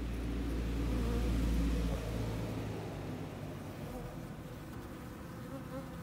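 Many honeybees buzzing in a wavering hum, with a low rumble underneath that stops about two and a half seconds in.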